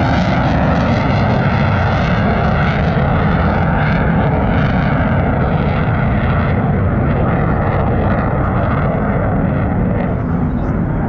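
Mitsubishi F-2 fighter flying past, its single F110 turbofan loud and steady, with a hiss that sweeps and shifts in pitch; it eases off slightly near the end.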